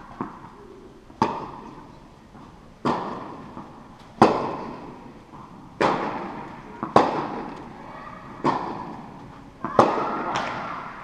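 Tennis rally: the ball popping off racket strings and bouncing on the court, a sharp pop every second or so, each ringing on in the long echo of a large indoor tennis hall.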